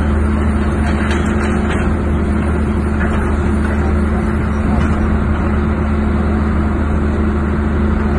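Steady running of the diesel engine and hydraulics that power a hydraulic pile breaker, a constant low hum, with a few faint clicks between one and two seconds in.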